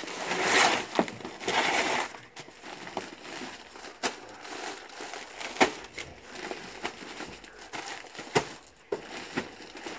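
Plastic bags of dry dog food crinkling as they are handled and lifted out of a cardboard box, with two loud rustling bursts in the first two seconds and scattered sharp clicks after.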